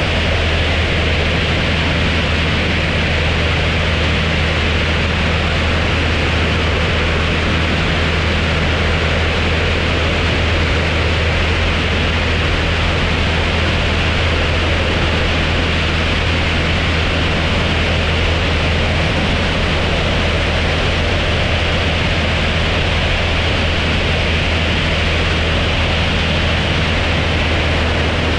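Light aircraft in cruising flight: a steady piston-engine and propeller drone under heavy wind rush on an outside wing-mounted microphone, unchanging throughout.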